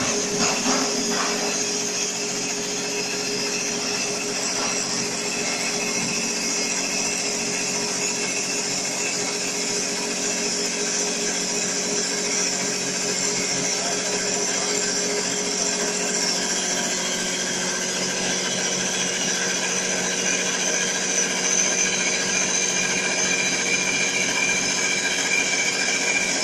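TJ1530 CNC wood-turning lathe cutting a wooden spindle: a steady machine run with several high, steady whining tones over the hiss of the cutter shaving the spinning wood.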